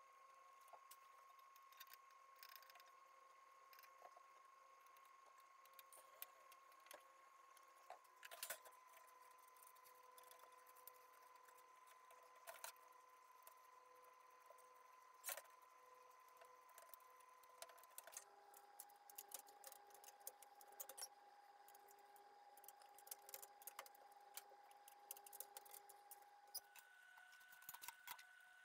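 Faint crackling and rustling of dry aspen wood-fibre swamp cooler pads being snipped with scissors and pressed into a metal pad frame, scattered light clicks that come more often in the second half.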